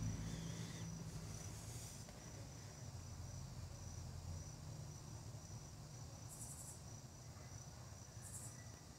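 Faint insect chorus: a cricket's steady, evenly pulsed high trill, with two short, higher buzzes in the second half, over a low rumble that fades during the first couple of seconds.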